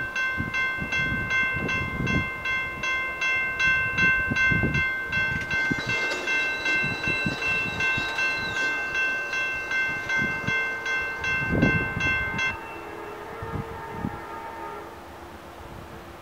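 Railroad grade-crossing bell ringing in rapid, evenly spaced strokes while the crossing gates lower. It stops abruptly about three-quarters of the way through, and an approaching train's horn then sounds faintly in the distance.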